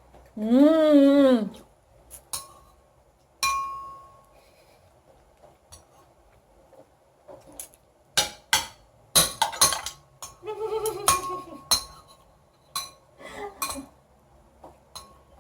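Spoons and cutlery clinking against ceramic bowls and plates while eating soup, a scatter of sharp taps, some with a brief ring, coming thickest about two-thirds of the way through. A young child makes two short vocal sounds, one just after the start and one about two-thirds in.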